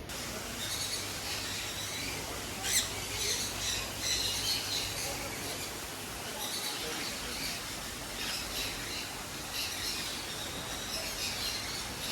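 A flock of parrots in an aviary calling and chirping, many short high calls overlapping throughout, with one louder squawk about three seconds in.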